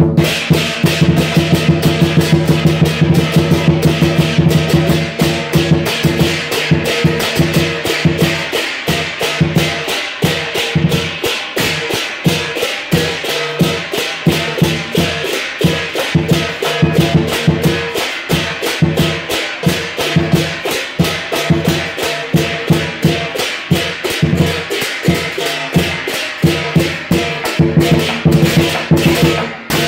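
Southern lion dance percussion: a lion drum beaten in a fast, continuous rhythm with clashing cymbals and a ringing gong, the live accompaniment that drives the lion's movements.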